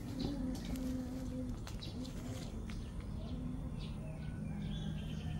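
A dove cooing in a run of low, steady phrases, with small birds chirping briefly in the background.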